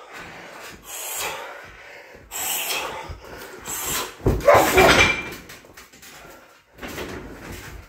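A person moving about close to the microphone, breathing hard after heavy-bag work, with a run of short breaths and rustles. A loud thump and rustle come about halfway through.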